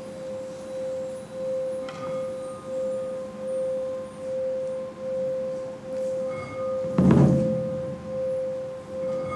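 A sustained ringing tone held at one pitch, swelling and fading about once every 0.7 seconds, played by the stage musicians as background to the scene. A single heavy thump sounds about seven seconds in.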